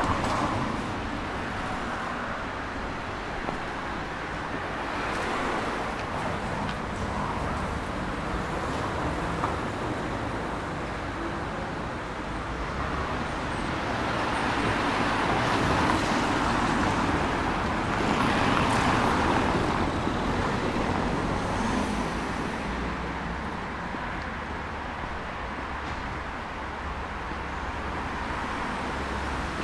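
Street traffic: a steady wash of road noise, swelling twice past the middle as vehicles pass close by.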